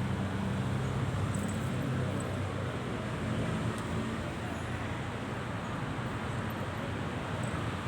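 Steady low rumble and hiss of outdoor background noise, like distant road traffic, with no distinct events.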